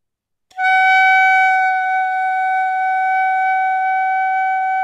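Clarinet mouthpiece and barrel blown on their own: one steady high tone that starts cleanly about half a second in and is held without wavering. It is the instant-sound embouchure exercise, where the tone is produced immediately by blowing with enough pressure.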